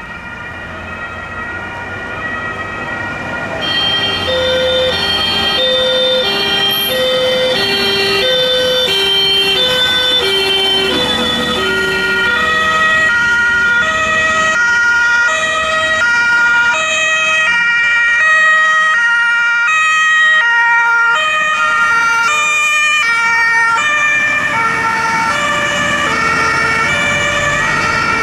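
Several fire engines' German two-tone sirens (Martinshorn), each switching back and forth between two pitches about every three-quarters of a second. The sirens overlap out of step at different pitches, growing louder over the first few seconds, over the low running of vehicle engines.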